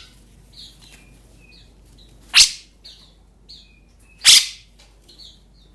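Birds in a shipping box: short faint high chirps about every half second, and two loud, sharp, harsh calls about two and four seconds in.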